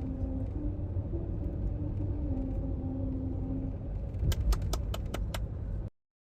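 Steady low vehicle rumble with a faint tune over it, then a quick run of six or seven sharp metallic clicks near the end before the sound cuts off.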